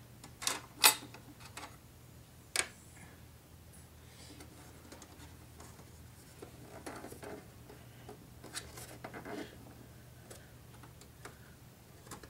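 Hands working the old ATI Radeon 2600 XT graphics card loose from its slot in a 2008 Mac Pro: three sharp clicks and knocks in the first three seconds, the second the loudest, then softer rattling and scraping of the card and its metal bracket. A steady low hum runs underneath.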